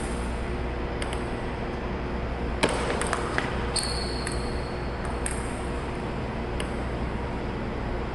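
Table tennis rally: the ball clicking off the paddles and the table in sharp, irregular ticks, about one or two a second. A steady low hum runs underneath.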